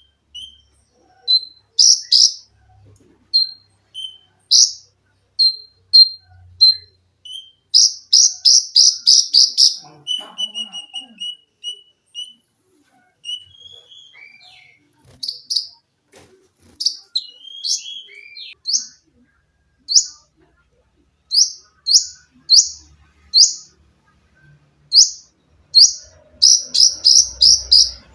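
A konin songbird singing: loud, sharp, high chirps, with two runs of rapid repeated notes at about six a second (the 'sewing machine' bursts), one around eight seconds in and one near the end. Between them, around ten to twelve seconds in, comes a string of lower, softer whistled notes.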